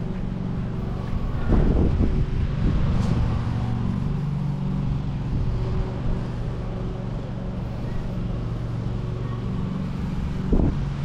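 Wind buffeting the microphone in gusts, about a second and a half in and again near the end, over a steady low mechanical hum.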